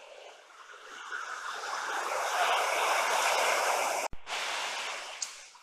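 Rapids of a rocky mountain river rushing over boulders, a steady roar of white water that cuts out for an instant about four seconds in.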